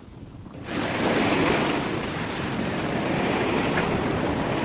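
Steady rush of sea waves and wind around a square-rigged sailing ship under way, cutting in suddenly under a second in.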